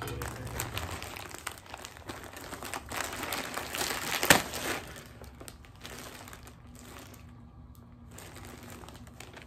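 Plastic poly mailer bag crinkling loudly as it is torn open by hand, with one sharp, loud tear about four seconds in. After that, fainter crinkling of plastic as the package is handled.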